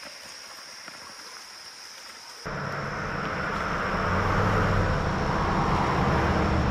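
Quiet outdoor air with a few faint ticks, then, about two and a half seconds in, the sudden rush of river water, growing louder as the bank is descended toward it, over a low rumble on the microphone.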